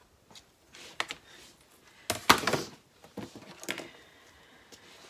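Rotary cutter and acrylic ruler being worked over fabric on a cutting mat and then set down: a few light clicks and knocks, with the loudest sound a short rasping rush a little over two seconds in and a smaller one just after.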